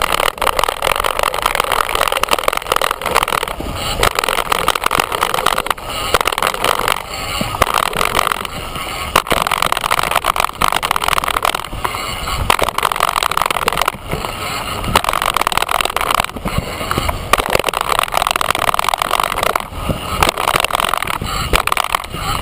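Wind rushing over a handlebar-mounted camera's microphone as a bicycle rides a dirt jump trail, with tyre noise on the dirt and brief knocks from the bike over bumps and landings. The rush is loud and swells and eases every few seconds.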